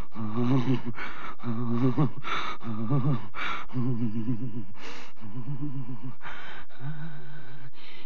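A woman's low, guttural demon-voice groans alternating with harsh gasping breaths, six groans in all, each broken off by a breath.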